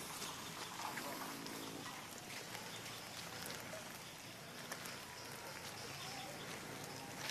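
Light rain pattering steadily: a soft, even hiss with scattered small drop ticks.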